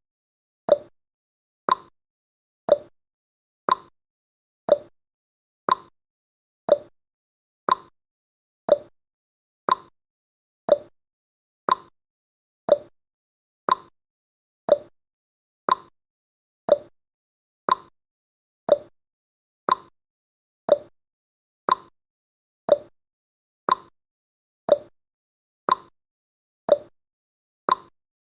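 Countdown timer's clock-tick sound effect: short, sharp ticks, evenly spaced at about one a second.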